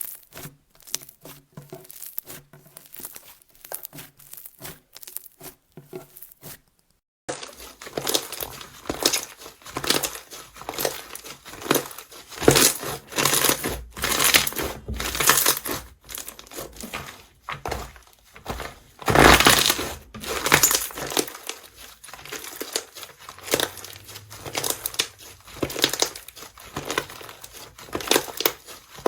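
Slime being squeezed and pressed by hand, making rapid runs of crackling, popping clicks. The sound drops out briefly about a quarter of the way in, then comes back as louder, crunchier crackling squeezes that rise and fall.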